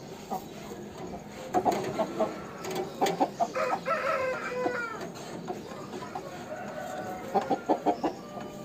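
Aseel rooster giving quick runs of short clucks, with a rooster's crow lasting about a second and a half near the middle that drops in pitch as it ends.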